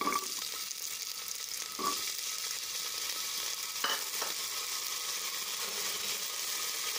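Diced raw potatoes sizzling steadily in hot mustard oil in a pressure cooker, with a couple of light knocks about two and four seconds in.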